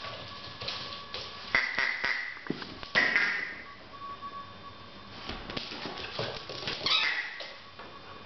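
Rubber squeaky dog toys squeaking as a Labrador puppy chews and plays with them: three loud, short squeaks, about a second and a half in, at three seconds and near seven seconds, with small knocks and rustles between.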